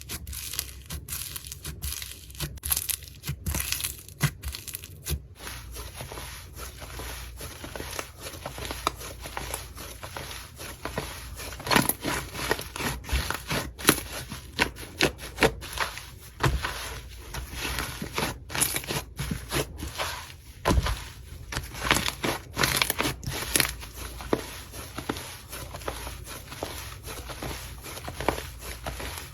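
Slime being worked by hand: a steady run of irregular sticky crackles, clicks and pops, with a few louder pops scattered through.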